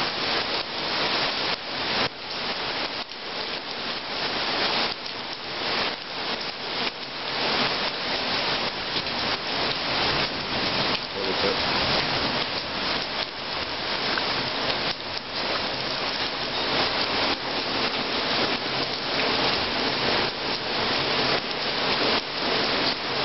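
Heavy tropical rain falling and pattering on hard surfaces in a steady hiss, with no thunder heard.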